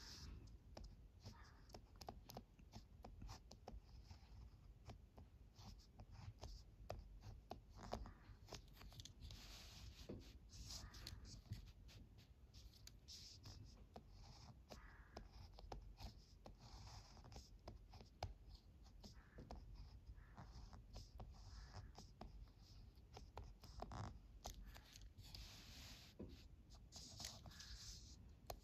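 Ballpoint pen tip scratching across paper as kanji are written stroke by stroke: faint short scratches with brief pauses between them, and small clicks scattered through.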